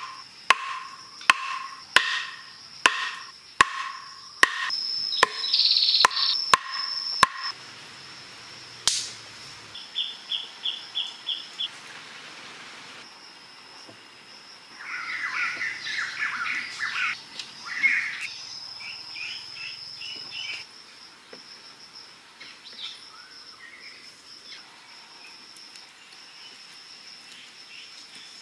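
About ten sharp wooden knocks, a little under a second apart, as a wooden stake is pounded into the ground; they stop about seven seconds in. A steady high insect drone runs underneath, and birds chirp in short bursts later on.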